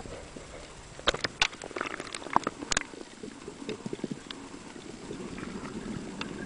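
Water splashing, with a quick run of sharp clicks and splashes, as the camera goes down through the surface. Then muffled underwater noise with a steady bubbling that swells toward the end.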